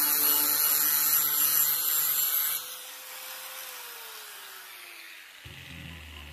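A power tool grinding, a loud hissing noise that stops abruptly about two and a half seconds in. A quieter falling hum follows as the motor winds down.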